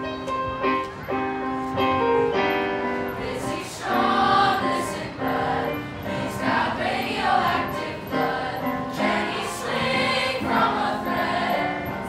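A mixed junior high school choir of boys' and girls' voices singing together in held, sustained notes.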